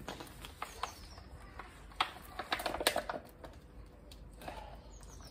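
Scattered light clicks and knocks of handling a wet bag pulled out by a fishing magnet, with a quick flurry about two to three seconds in.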